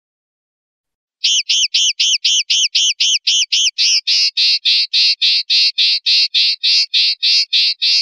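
Common linnet singing: a fast, even run of repeated high notes, about four a second, starting about a second in and switching about four seconds in to a fuller, harsher repeated note.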